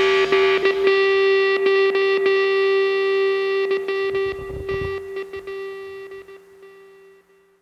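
Background rock music ending on a held guitar note that rings on and fades out near the end.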